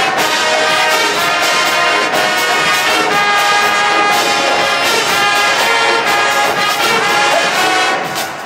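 HBCU marching band playing loudly, with a full brass section of trombones and trumpets over steady drum hits. It eases a little in loudness near the end.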